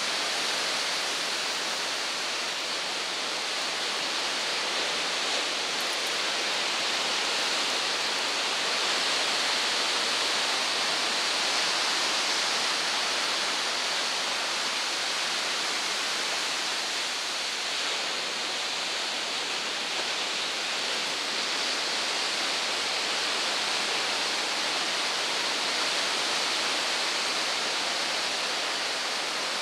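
Ocean surf breaking on a sandy beach: a steady hissing wash of waves that swells and eases only slightly.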